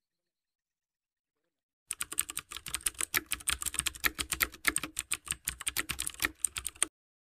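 Typing sound effect: rapid, irregular key clicks that start about two seconds in, run for about five seconds and stop abruptly.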